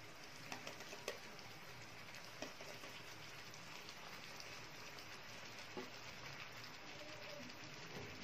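Thin tomato gravy simmering in a pan: a faint, steady bubbling crackle, with a few soft clicks as besan tikkis are set into it by hand.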